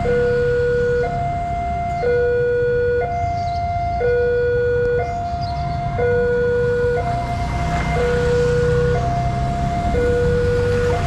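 Electronic two-tone warning alarm of an Indonesian railway level crossing, sounding from the signal's loudspeaker and switching between a lower and a higher tone about once a second to warn of an approaching train. Road traffic runs underneath, and a motorbike passes close in the last few seconds.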